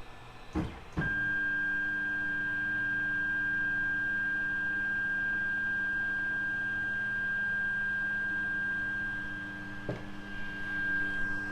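Creality Ender 3 3D printer giving a steady high-pitched whine with a lower hum under it, switching on abruptly after a click about a second in.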